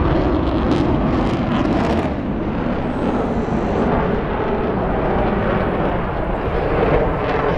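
Jet aircraft engines making a loud, steady roar overhead.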